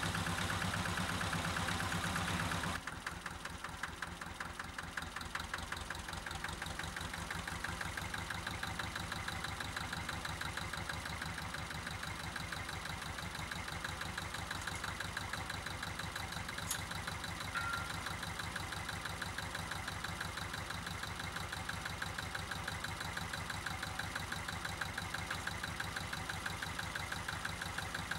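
Zetor 25A tractor's two-cylinder diesel engine running, louder at first, then dropping sharply about three seconds in to a steady, evenly pulsing idle.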